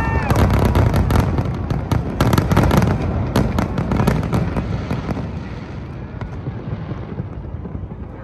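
Aerial fireworks going off in quick succession, bangs and crackling bursts packed close together, then thinning out and dying away over the last few seconds as the display ends.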